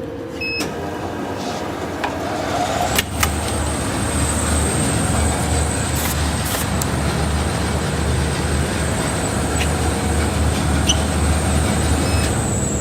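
Folding-box tape-applying machine running: a steady motor and conveyor noise with a thin high whine and a low pulsing hum, rising about two seconds in. A couple of sharp clicks come about three seconds in.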